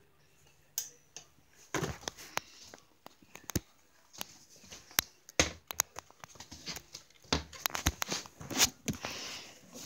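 Handling noise from a camera being moved against clothing: irregular rustles and scrapes broken by many sharp clicks and knocks.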